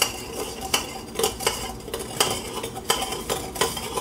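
Metal spoon clinking and scraping against the inside of a stainless-steel funnel as it stirs used deep-fryer oil, in irregular strokes about every half second, each clink ringing briefly. The stirring moves the oil over the funnel's screen so it keeps draining instead of clogging with particles.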